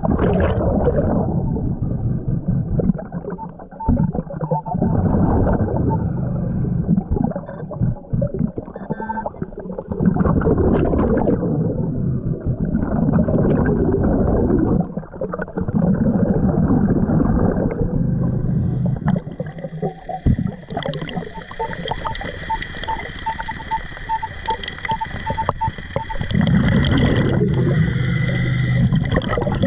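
Underwater noise from a scuba diver digging and fanning through seabed gravel: a dense, gurgling water noise that comes in surges. A run of short, quick beeps sounds twice, briefly about eight seconds in and again for several seconds past the twenty-second mark.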